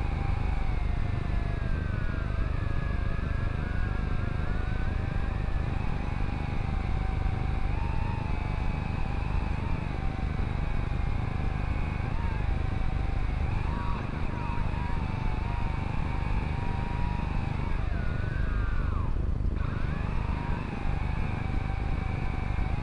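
Drone's motors and propellers whining as picked up by the camera riding on it, the pitch wandering up and down with the throttle and swooping quickly a few times near the end, over a heavy wind rumble.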